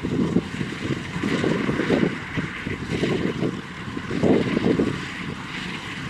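Farm tractor engine running steadily as the tractor drives across a field pulling a trailer, its low rumble surging unevenly.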